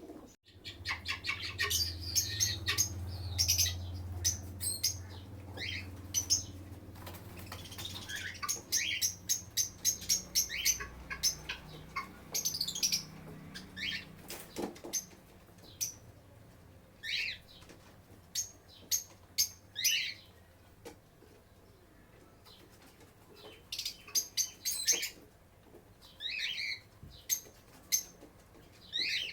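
Lovebirds chirping: a dense run of rapid, high chirps and short calls in the first half, then sparser single sharp calls every few seconds. A low steady hum sits underneath for roughly the first dozen seconds.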